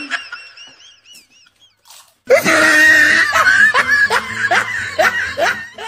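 People giggling and laughing with their mouths full of pani puri: a fading giggle at the start, a short lull, then louder pulsing laughter from about two seconds in.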